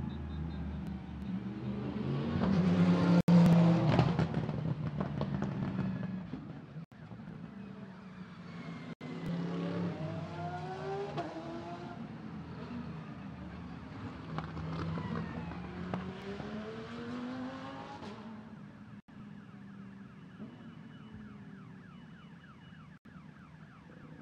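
Racing touring cars passing by, their engines revving with pitch sweeping up and down. Loudest about three seconds in, with more cars around ten and fifteen seconds, then fading after about eighteen seconds.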